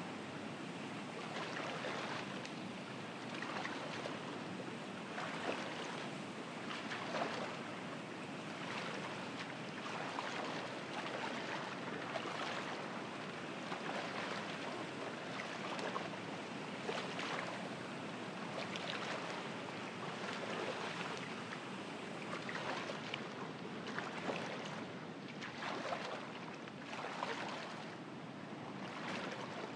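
Oars of a small rowboat dipping and pulling through pond water, a splashing stroke every second or two, over a steady wash of water.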